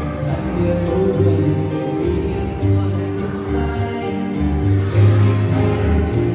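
Music: a song with sustained pitched notes over a strong, changing bass line, with guitar.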